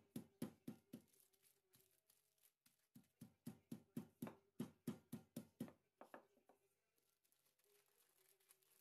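Wooden rolling pin pounding a chicken thigh fillet inside a thick plastic bag on a tabletop: faint, quick thuds, four at first, then after a short pause a run of about a dozen at roughly four a second.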